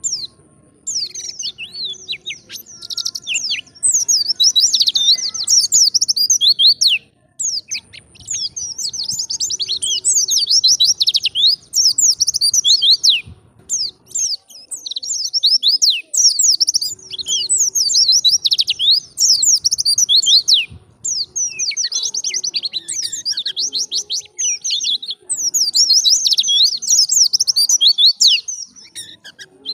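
White-eye (pleci) singing hard: fast, high twittering of tumbling chirps in long phrases, broken by a few short pauses.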